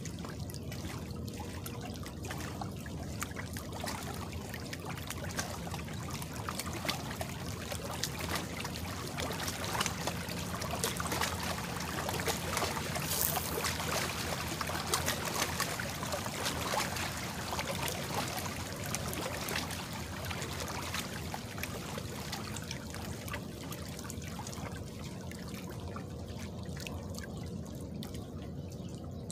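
Lake water trickling and lapping, a little louder through the middle stretch.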